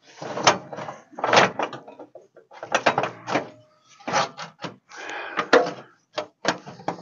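Steel exhaust header tubes being wrenched back and forth while wedged together, scraping and clunking against each other and the metal around them in about six rough bursts.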